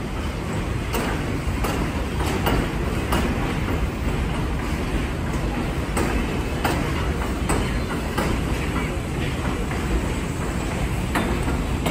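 An R62A subway train rolls past on elevated track with a steady rumble. Its wheels clack sharply and irregularly, roughly once or twice a second, as they cross the rail joints.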